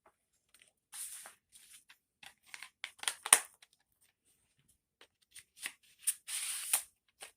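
DVD packaging being handled: irregular rustling of plastic and paper with sharp clicks. The loudest click comes about three seconds in, and a longer rustle comes near the end.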